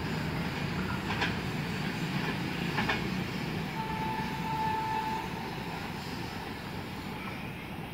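Low, steady rumble of a train on the line, easing off toward the end, with two short clicks and a brief faint steady tone midway.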